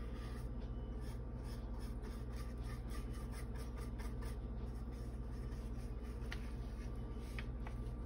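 A small paintbrush stroking and dabbing acrylic paint onto a wooden panel: soft, scratchy brushing strokes repeating a few times a second. A steady low hum runs underneath.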